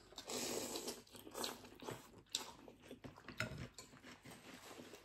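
Slurping a mouthful of bún rice noodles from chopsticks, then chewing, with a few short clicks scattered through.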